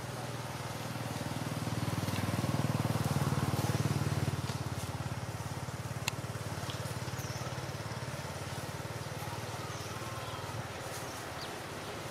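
A motor vehicle's engine rumbling low in the background, swelling over the first few seconds and then easing off, with one sharp click about six seconds in.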